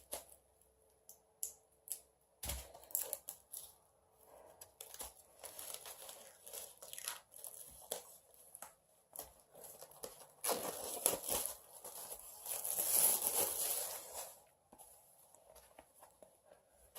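Plastic wrapping being torn and crinkled off a music album, among small clicks and taps as the package is handled. The tearing and crinkling is loudest from about ten to fourteen seconds in.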